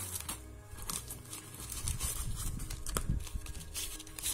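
Packaging crinkling and rustling in a series of short crackles as hands pull blister cards of CR2032 coin-cell batteries out of a yellow padded mailer.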